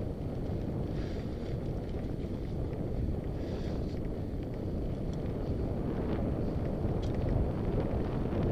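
Mountain bike riding dirt singletrack, its tyres rolling and the bike giving faint scattered clicks and rattles, under wind rushing steadily over the helmet-mounted camera's microphone.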